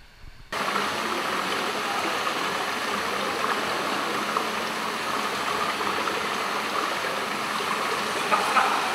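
Steady rush of running water in an indoor saltwater fishing pool, cutting in abruptly about half a second in and holding an even level.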